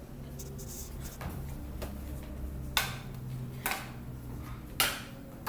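Stage combat: sharp clashes at irregular intervals, faint at first and louder from about halfway on, over a low steady hum that stops a little past halfway.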